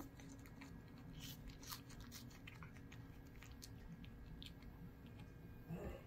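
Turkish Angora cat chewing and licking up small pieces of food from a saucer: faint, irregular wet clicks, several close together in the first two seconds and sparser after.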